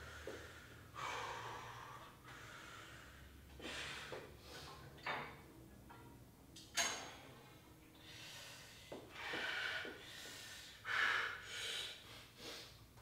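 A man breathing hard from exertion during a weight-training set: about nine forceful, noisy breaths, irregularly spaced a second or two apart.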